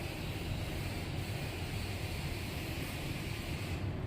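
Steady background noise with no distinct events, a low rumble under a faint hiss.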